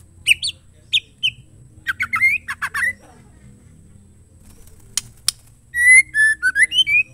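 Female white-rumped shama calling: a few short whistled notes, a quick run of sweeping chattering notes, two sharp ticks, then a longer phrase of varied whistled notes near the end.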